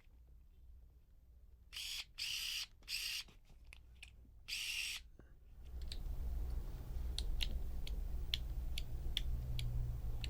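Small plastic model-kit parts being worked by hand: several short scraping strokes in the first half, then a string of sharp light plastic clicks over a low background rumble from about halfway.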